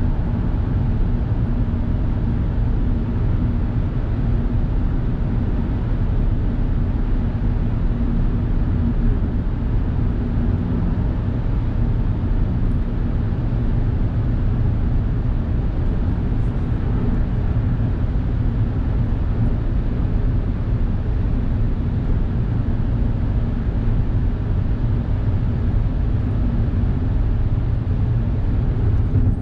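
Steady low rumble of tyre and engine noise inside a Suzuki Hustler kei car cruising at expressway speed through a tunnel. The car has a 660 cc three-cylinder engine.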